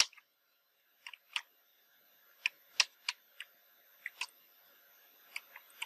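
Computer keyboard keys clicking as someone types slowly: about fifteen sharp, unevenly spaced keystrokes.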